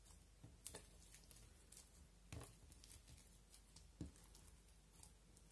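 Clear slime studded with colourful plastic flakes being stretched, folded and pressed by hand, giving faint scattered sticky pops and crackles, with a soft pat about four seconds in as it is pressed flat onto the plate.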